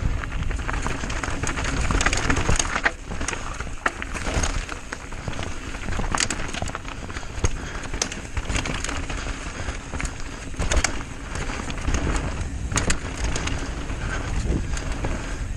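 Mountain bike riding down a rough dirt enduro trail: tyres rolling over loose ground with frequent rattles, clicks and knocks from the bike, over a steady low rumble.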